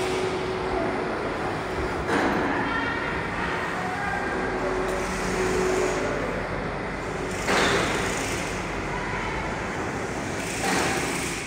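Steady background traffic noise, with a few short, louder rushes of noise.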